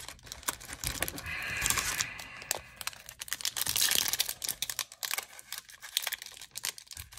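Foil wrapper of a Magic: The Gathering collector booster pack crinkling and tearing as fingers pick it open at the top corner after its pull tab fails: a run of small crackles with a couple of longer tearing rasps.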